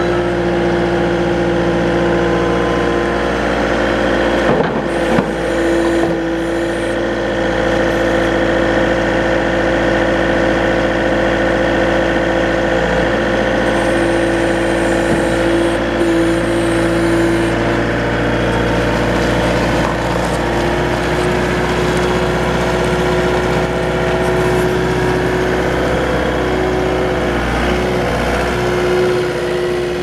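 Kubota four-cylinder diesel engine of a 2008 Bobcat S300 skid steer running steadily, with a steady high whine over the engine note and a brief knock about five seconds in.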